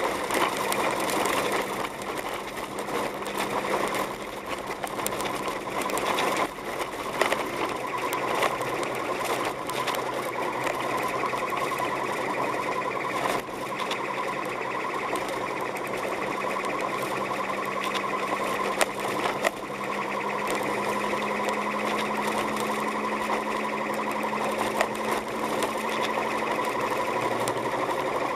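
A car heard from inside its cabin while driving on a snow-covered road: a steady, rapid mechanical buzz over a constant engine hum, with a few brief knocks.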